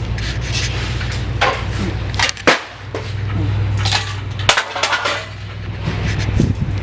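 Bags of aluminum cans being handled, with several sharp metallic clanks and knocks, the loudest about two and a half seconds in and again past the middle. A steady low hum of a running engine or machine lies underneath.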